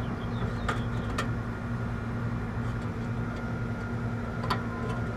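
Steady machinery hum with a low, even drone, broken by a few light clicks about a second in and again near the end.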